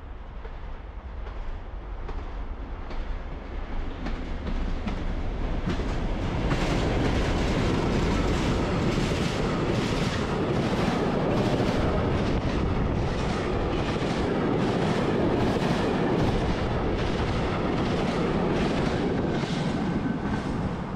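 Log train of empty timber wagons hauled by Class 37 diesel locomotives running through at speed. The noise builds over the first six seconds, then the wheels clatter over the rail joints in a fast, steady rhythm as the empty wagons pass.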